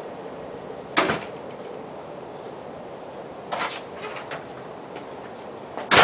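48-inch Union spinner ceiling fan running on high with a steady whoosh, broken by three sharp knocks: one about a second in, a softer one partway through, and the loudest near the end.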